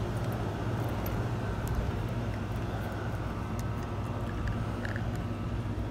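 Steady low mechanical hum over outdoor background noise, with a few faint clicks.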